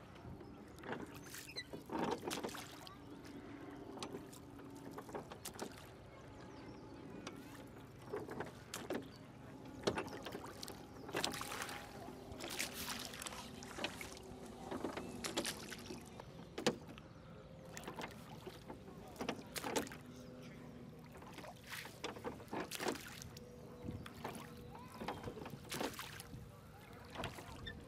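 Rowing boat under way on calm water: oars dipping and pulling, with irregular splashes and knocks every second or two over a low wash of water.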